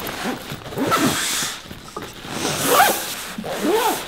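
A bag zipper being pulled along the FlipBag 2 convertible backpack in about four strokes, each a rasping zip that rises and falls in pitch, as the bag is unzipped to turn it inside out into a tote.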